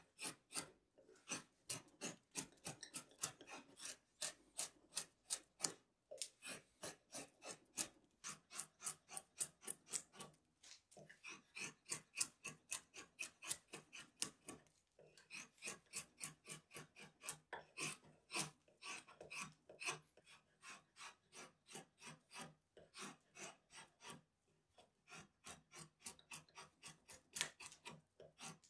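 A drawknife paring the edge of a square hardwood stool leg, rounding it over. It makes quick, short shaving strokes about two to three a second, each lifting a thin curl of wood, with a few brief pauses.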